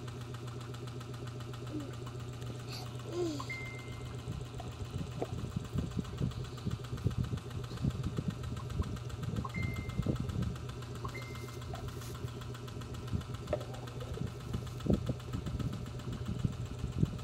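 Steady low mechanical hum, with irregular soft knocks from about five seconds in and three brief high beeps.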